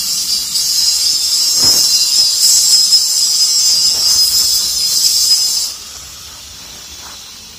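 Angle grinder grinding steel: a loud, steady high-pitched hissing screech that stops abruptly about two-thirds of the way through, leaving only a faint hiss.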